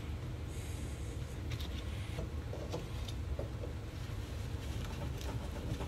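Faint scattered clicks and scrapes of pliers working the hose clamps and fuel hoses on top of a fuel tank's pump unit, over a low steady rumble.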